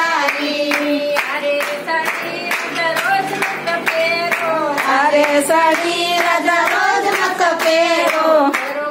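A group of women singing a Gujarati devotional bhajan together, with hand claps keeping a steady beat.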